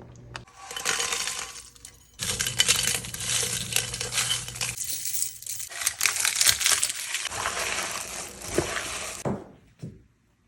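Rapid, irregular clinking and jingling of many small hard pieces shaken or jostled together. It comes in two stretches with a short break about two seconds in, and stops a little after nine seconds.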